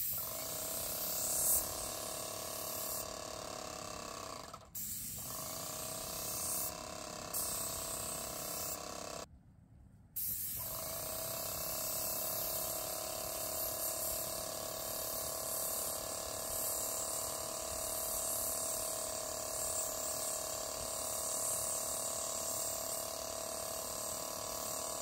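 Airless paint sprayer spraying paint through the gun tip: a steady, loud hiss with a hum of tones under it. It stops briefly about five seconds in and for about a second near ten seconds in, then starts again.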